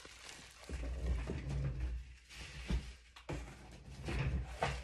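Handling noise from unpacking: boxes and items being moved and set down, with rustling and several knocks.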